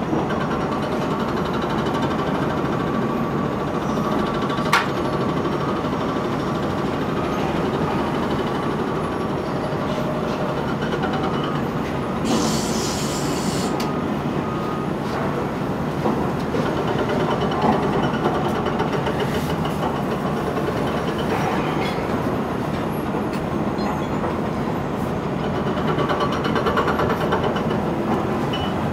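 Komatsu PC228LC-8 excavator's diesel engine running steadily under digging load while the bucket works rock and soil in a footing trench, with a sharp click about five seconds in and a brief hiss about twelve seconds in.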